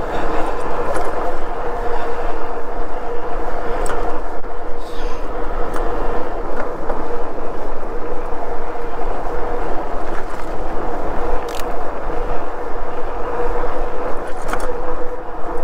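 Himiway Zebra fat-tire e-bike riding along the road: a steady hum with a held tone, from the tires and drive, and a couple of light clicks.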